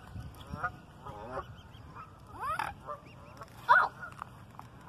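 Waterfowl calling: a string of short pitched calls, one rising about two and a half seconds in, with the loudest call near the end.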